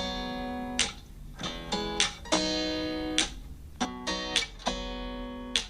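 Acoustic guitar strumming chords in a song's instrumental break between vocal lines, a sharp strum every half second to a second with the chord ringing on between.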